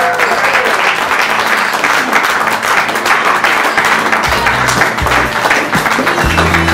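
Audience applauding, with music playing; a heavy bass beat comes in about four seconds in.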